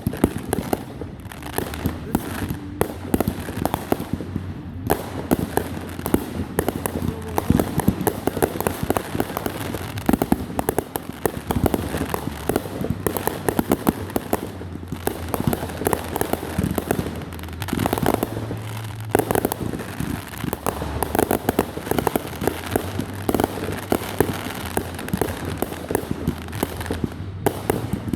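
Fireworks going off in a dense, continuous run of sharp cracks and bangs, with louder reports scattered among them.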